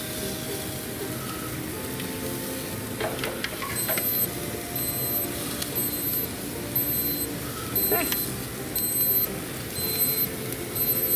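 Digital meat-thermometer fork beeping in a steady series of short high beeps, about two a second, starting about four seconds in: the alert that the grilled chicken thighs have reached temperature. A few light clicks and a steady hiss underneath.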